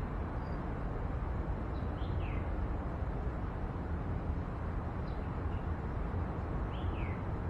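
Steady outdoor background noise with a low rumble, and a bird giving short falling chirps, most clearly about two seconds in and again near the end.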